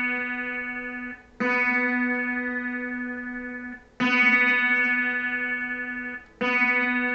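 A guitar's open B string, tuned to standard pitch, plucked three times as a tuning reference. Each note rings for about two seconds and fades before the next pluck.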